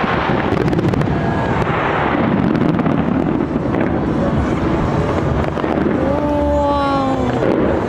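New Year's Eve fireworks going off over a large cheering crowd, a dense continuous din with scattered crackles. About six seconds in, one voice gives a long falling shout.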